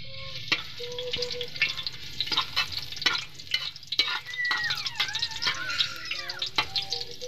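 Chopped garlic sizzling in hot oil in a metal wok, with a spoon clicking and scraping against the pan as it is stirred.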